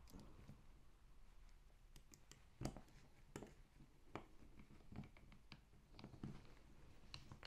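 Faint, scattered clicks and ticks of a small screwdriver turning cap screws into a metal gearbox housing, the loudest a little under three seconds in.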